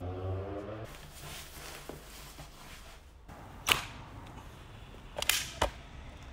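Sharp clicks of a Micro Merlin electric scooter's folding mechanism as it is unfolded and locked upright: one loud click a little past halfway, then a quick cluster of clicks near the end.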